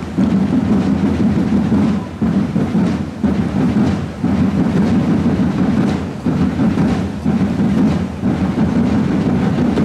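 Massed parade drums of a historical drum corps playing a continuous, rolling marching beat, with short dips about once a second.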